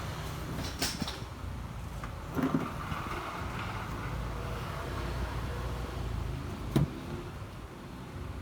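A steady low rumble with a few sharp clicks or knocks, about a second in, around two and a half seconds, and a louder one near the end.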